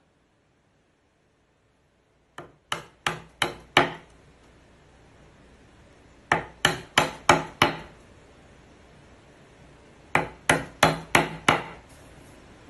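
Wood chisel being struck to cut and square the edges of a router-cut recess in a board: three quick runs of about five sharp knocks each, about three a second, starting about two seconds in.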